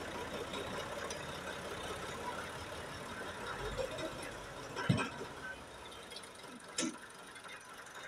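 Farm tractor's engine running at low revs while the tractor is driven slowly into the shed, the engine sound fading after about five seconds. A sharp knock about five seconds in and a smaller one near seven seconds.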